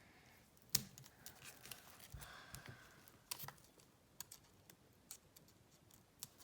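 Scattered light clicks and taps of hands handling an album package, with one sharper click about a second in.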